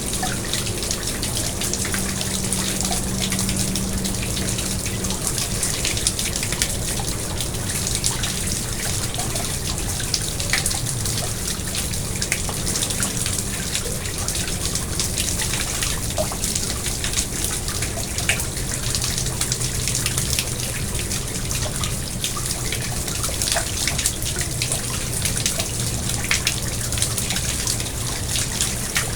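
Pond water trickling and splashing steadily, with many small drips.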